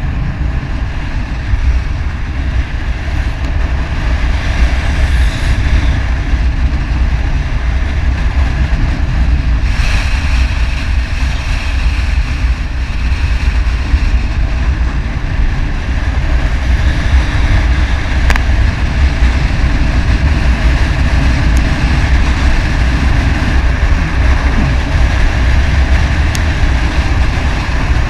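Heavy wind rumble on the microphone of a riding motorcycle, with the motorcycle's engine and road noise steady underneath.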